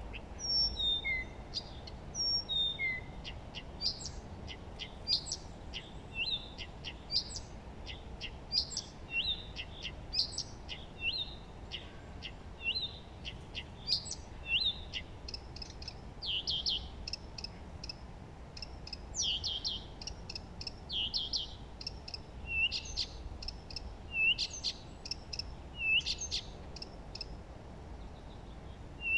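Several songbirds singing and chirping together in a busy chorus of short, quick whistled notes, over a faint steady background hiss.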